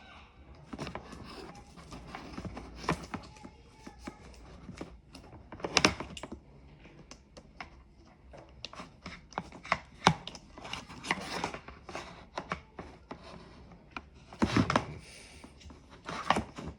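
Hand handling of the Dremel 3000 rotary tool and its hard accessories: irregular clicks, knocks and rubbing, with sharper knocks about six, ten and fourteen seconds in. No motor is running.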